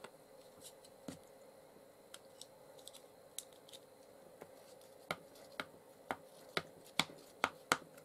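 Light handling clicks, then about six sharp taps roughly two a second in the second half, louder toward the end: a small ink pad being dabbed against a clear stamp on an acrylic stamping block.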